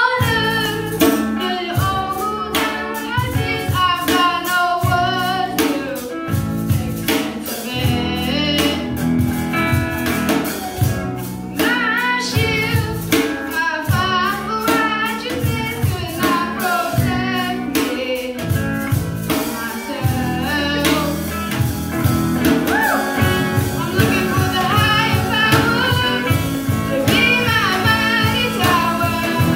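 Live band song: adult and children's voices singing together over strummed acoustic guitars and electric bass, with a steady beat.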